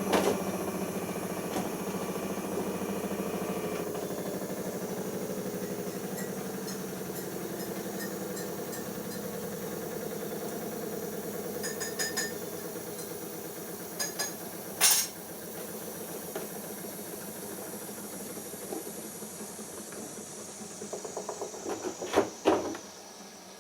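Siemens iQ washing machine's drum motor running with a whine that slowly falls in pitch and fades. A few sharp clicks and clunks come about halfway through and again near the end.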